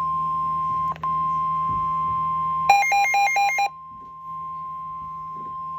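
Emergency alert warning tone: a single steady high-pitched tone, typical of the NOAA Weather Radio warning alarm, with a brief dropout about a second in. About three seconds in, a rapid alternating two-pitch beeping cuts in over it for about a second, after which the steady tone carries on at a lower level.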